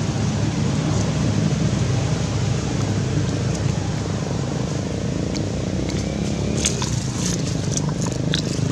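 Steady low rumbling noise, with a few light crackles about seven to eight seconds in.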